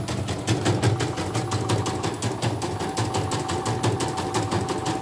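CNY portable computerised embroidery machine stitching: a rapid, even clatter of the needle, about nine stitches a second, with a steady motor whine underneath. It is running after its motor, rotary hook and bobbin case have been replaced.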